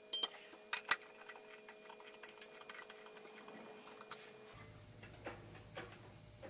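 Faint metal clicks and knocks as a cast-iron brake drum is handled and seated on the jaws of a lathe chuck: a few sharp ones in the first second and one more about four seconds in.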